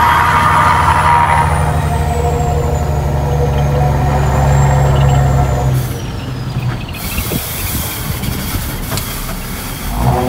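Renault Premium 370 truck's diesel engine heard from inside the cab, pulling steadily, then dropping away about six seconds in as the throttle comes off for a bend. A hiss of air follows for a few seconds, and a thin high whistle slowly falls in pitch. The engine picks up again near the end.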